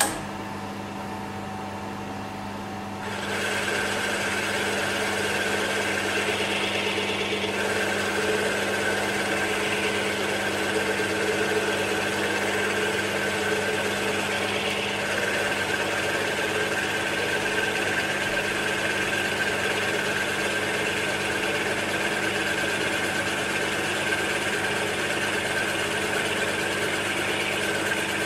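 Milling machine spindle running a boring bar, taking a light finishing cut in a cast-iron bore. About three seconds in the sound steps up, a higher cutting sound joining the motor hum, and it then holds steady as the bar is hand-fed down the hole.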